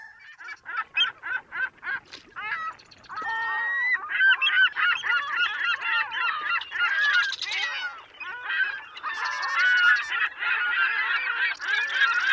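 A flock of birds calling, with short repeated calls at first and then many calls overlapping from about four seconds in.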